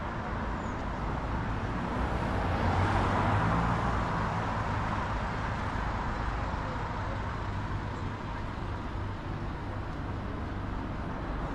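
Street traffic: a steady wash of road noise, with one motor vehicle growing louder and passing about two to four seconds in, then fading back into the general traffic.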